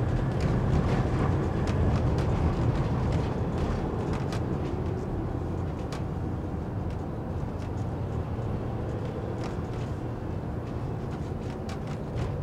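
Motorhome engine and road noise heard from inside the cab while driving: a steady low rumble with a few faint clicks, easing slightly in loudness.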